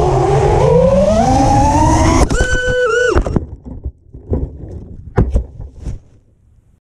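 FPV quadcopter's brushless motors (HGLRC Aeolus 2306.5, 1900 kV, on three-blade props) whining, their pitch dipping and then climbing with the throttle. About two seconds in comes a sharp crack as the drone crashes, and the motor tone steps down and dies within a second, followed by a few scattered knocks.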